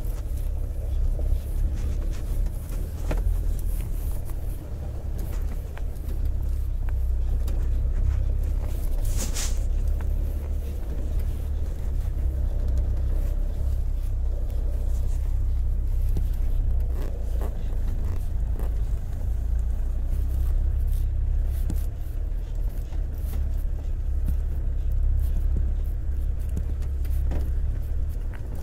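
Car cabin noise while driving slowly on a snow-covered road: a steady low engine and road drone, with scattered short knocks and scrapes from the tyres and suspension.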